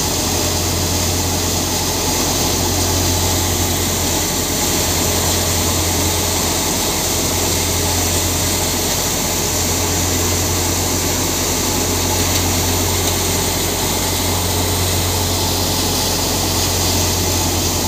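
Mahindra Arjun Novo 605 DI-i diesel tractor running steadily under load, driving a PTO-powered thresher at work. The engine's low hum and the threshing drum's noise make one constant, unchanging din.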